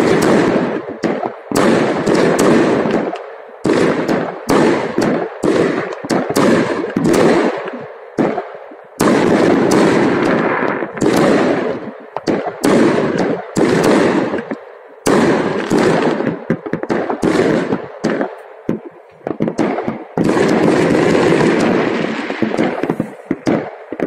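Fireworks going off in a near-continuous run of loud bangs and crackles, several a second, each bang trailing off in an echo, with only brief lulls.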